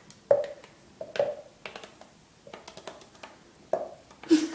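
A pet budgie's feet tapping on a hard surface: irregular light taps and clicks, with a few louder ones roughly a second apart and a run of faint ticks in the middle.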